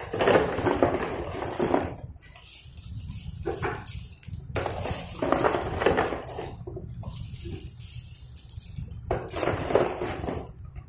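Dry slate pencil sticks clattering against each other and the cardboard box as hands scoop up handfuls and let them fall, in about three long bursts with a short one between.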